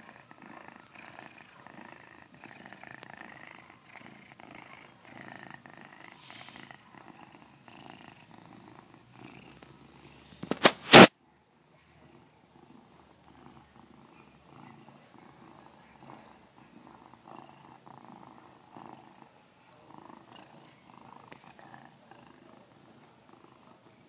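A pet snoring, a steady rhythmic rasp that carries on throughout. A brief, very loud noise cuts in about ten and a half seconds in; afterwards the snoring is quieter.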